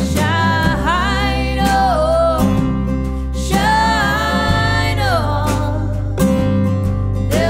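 Live song: a woman singing long, drawn-out phrases over a strummed acoustic guitar and electric bass.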